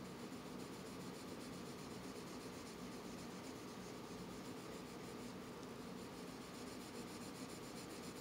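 Faint, steady scratching of a coloured pencil shading on paper in small oval strokes, layering pencil on pencil to darken a shadow.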